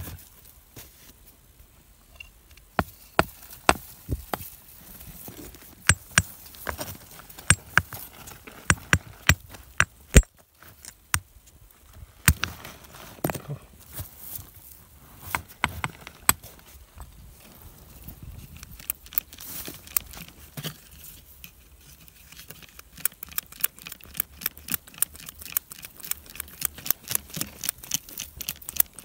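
A hand tool chipping at a stone: sharp, separate taps and knocks at an uneven pace, then a quick, even run of lighter taps, about four or five a second, in the last several seconds.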